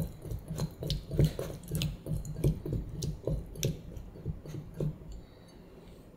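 Peeled raw shrimp being squeezed and kneaded by hand in a glass bowl, a wet squelch with each squeeze, about two to three a second. The squelching stops about five seconds in.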